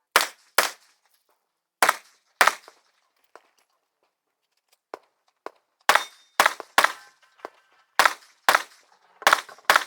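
Competition revolver fired in rapid pairs and strings during a practical-shooting stage, about eleven sharp shots. A pause of about three seconds in the middle holds only a few faint clicks, typical of a revolver reload.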